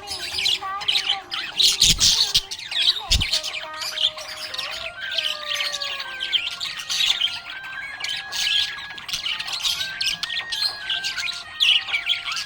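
Budgerigars chirping and warbling in a busy, continuous stream of quick high notes, with two dull low thumps about two and three seconds in.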